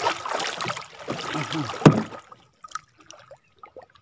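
Wooden paddle stroking through the sea beside a small wooden outrigger canoe: two strokes of swishing, splashing water, the second ending in a sharp knock about two seconds in. After that only faint small clicks.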